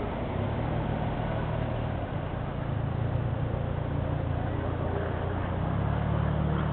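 A car engine running with a low, steady hum that strengthens toward the end, as a vehicle moves through the lot, over general traffic noise.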